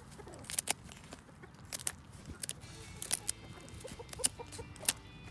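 Kitchen scissors snipping through a hen's long wing feathers during wing clipping: a series of sharp, irregularly spaced snips. Soft clucking from the chickens underneath.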